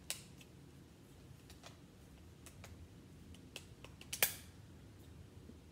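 Light plastic clicks and taps as a clear plastic protector frame is pressed and snapped around the edges of an iPhone, a few scattered clicks with the sharpest about four seconds in.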